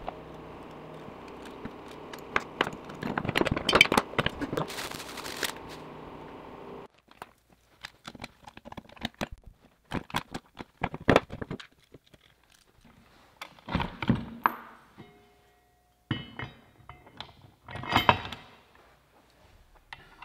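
Knocks, clicks and clunks of metal parts and hardware being handled and set down on a steel mounting plate on a wooden workbench, as an air compressor and air tank are positioned on it. A steady background hum with several held tones runs underneath at first and stops abruptly about seven seconds in.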